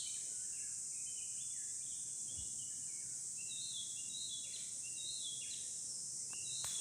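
Background of insects making a steady high-pitched drone, with birds chirping in many short notes over it.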